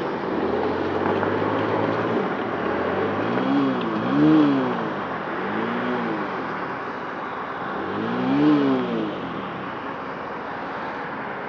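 Motorcycle engine running under a steady rush of road and wind noise, revving up and back down three times.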